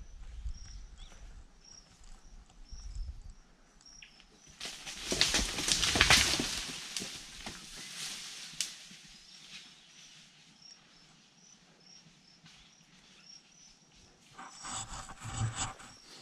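A scrub bull bolting through dense mangrove scrub: a sudden crash of snapping branches and rustling that lasts about two seconds, starting about four and a half seconds in. A faint high chirp repeats about twice a second behind it.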